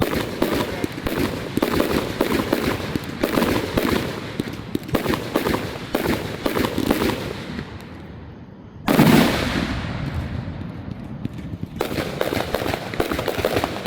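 Aerial fireworks display: rapid crackling and popping of bursting shells, then one loud boom about nine seconds in that fades out slowly, before the crackling starts up again near the end.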